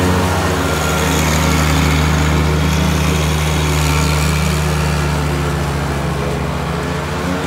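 Kubota F3080 four-wheel-drive mower's diesel engine running steadily while the mower drives across grass.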